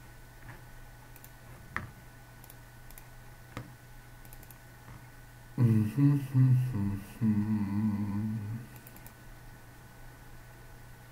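A man hums a short tune for about three seconds, starting a little past halfway, over a steady low background hum. A few single mouse clicks come before it.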